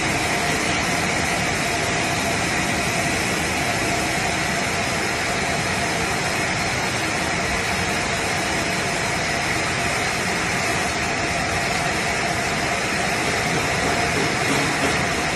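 ZJ-2500 container sterilizing machine running: a steady mechanical whir and hiss from its chain conveyor and drives, with a faint constant tone underneath.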